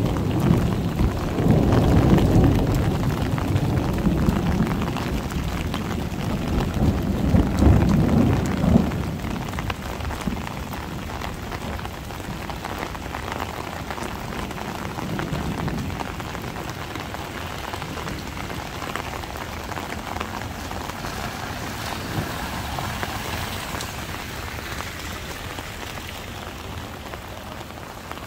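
Heavy rain pouring down, with a roll of thunder rumbling through the first eight or nine seconds and then dying away. After that the rain hisses on steadily, slowly easing.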